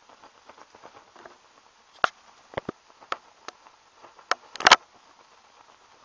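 Denatured-alcohol can stove burning under a pot of water, giving irregular crackles and sharp pops: scattered small ticks, then about seven loud pops from about two seconds in, the loudest cluster near the end. The fuel is overflowing the stove and burning around its base.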